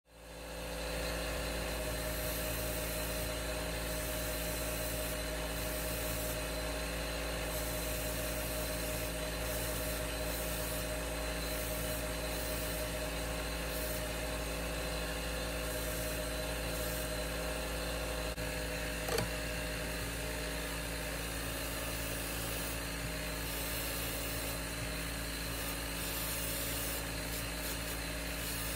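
Airbrush spraying paint, its air hiss coming and going over the steady hum of a small motor. There is one sharp click about two-thirds of the way through.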